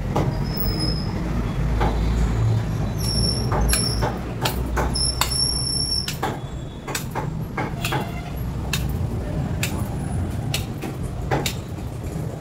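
Street traffic noise dominated by a heavy vehicle such as a bus running close by, a loud low rumble that fades about halfway through. A few brief high squeals come a few seconds in, with scattered sharp clicks and knocks throughout.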